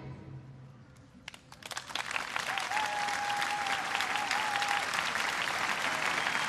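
The music's last note dies away, then after a brief hush a few scattered claps grow into steady audience applause. A thin wavering tone rides over the applause for about two seconds in the middle.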